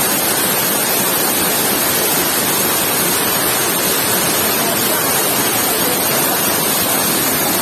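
Waterfall: the steady, loud rush of falling water, an even hiss-like roar that does not change.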